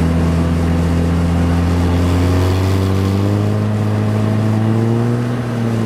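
The 1.6-litre turbodiesel engine of a 1991 VW Jetta, heard from inside the cabin, pulling under boost. Its pitch rises slowly as the car accelerates.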